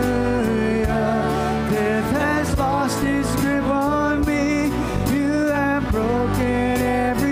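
Live church worship band playing a contemporary worship song: a woman's lead vocal held on long notes over electric guitars, bass, drums and keyboard.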